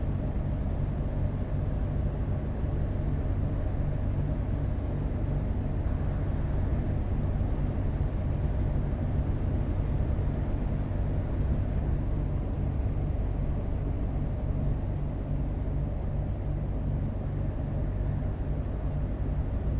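Scania V8 truck engine running steadily under way: a constant low drone with road noise, holding the same pitch throughout with no revving or gear changes.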